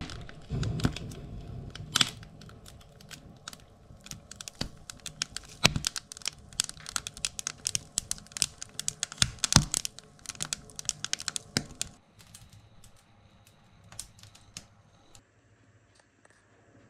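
Wood fire crackling and popping inside a wood-burning stove, a dense run of sharp pops that thins out to a few scattered ones after about twelve seconds.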